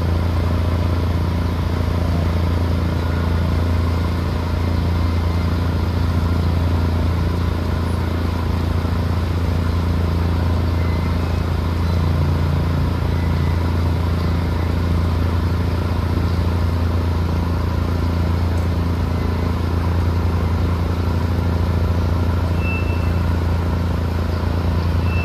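Large diesel engine running steadily at constant speed, a deep unbroken drone, typical of the concrete pump truck and mixer trucks on a concrete pour.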